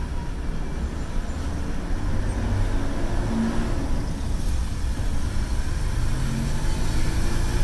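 Steady low rumble of engine and road noise inside the cabin of a moving vehicle, mixed with the surrounding traffic.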